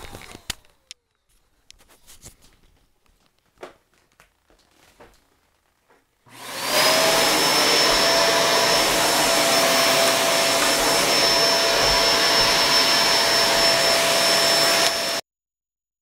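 Shark Duo vacuum cleaner: the tail of its motor spinning down at the start, a few light clicks, then about six seconds in it is switched on. It rises quickly to a steady high whine over a loud rush of air and stops abruptly near the end.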